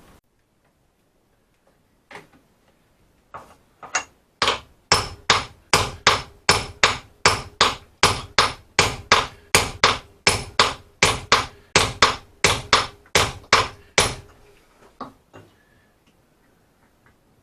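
Hammer blows: a few spaced strikes, then a steady run of about two to three blows a second for about ten seconds, tailing off into a few lighter taps near the end.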